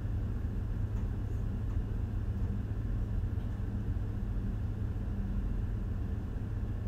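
Steady low machinery hum of a ship's engine room, even throughout with no distinct knocks or clicks.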